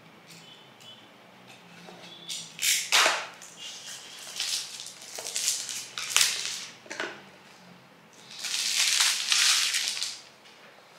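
Clear plastic shrink-wrap crinkling as it is torn and pulled off a small cardboard box, in several rustling bursts, the longest about two seconds near the end.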